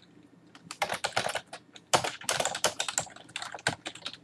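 Typing on a computer keyboard: quick runs of key clicks, one about a second in and a longer one from about two seconds to nearly four.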